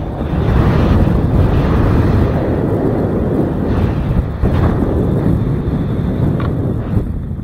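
Wind rushing over the camera's microphone as a skydiver descends under an open parachute: a loud, steady low rumble with a brief dip about four and a half seconds in.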